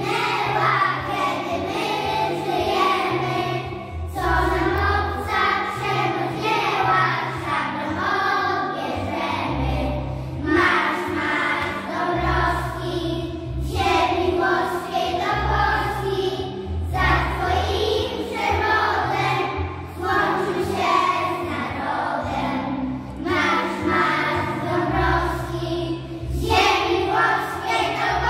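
A group of young children singing together in unison over a musical accompaniment with a low bass line.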